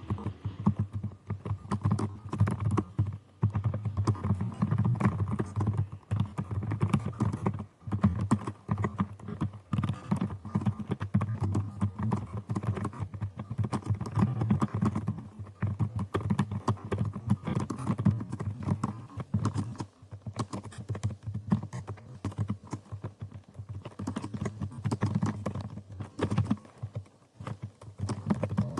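Fast typing on a computer keyboard at around 100 words per minute: a rapid, continuous stream of key clacks, broken by a few short pauses.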